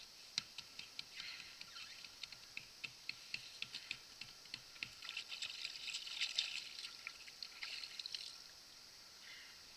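Small splashes and drips of sea water at the side of an inflatable boat: a quick run of light ticks and patters, stopping about eight seconds in.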